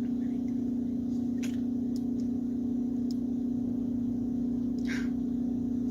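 A steady low hum throughout, with a few faint clicks and a soft rustle about five seconds in from the headphones being handled while the power button is searched for.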